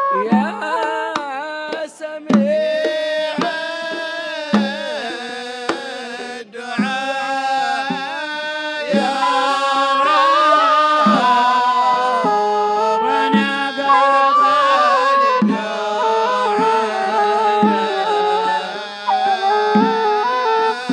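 Hadrami zarbadi music: a group of men singing a religious qasida in ornamented, sliding lines over a steady beat of small hand drums and a large double-headed barrel drum. A reed flute is held right at the start.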